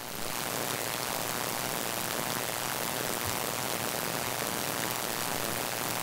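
Steady hiss of an off-brand USB-C to XLR adapter's noise floor, played back with a lot of gain. The hiss is high and even, much noisier than the other USB adapters tested, and it comes up a little just after the start.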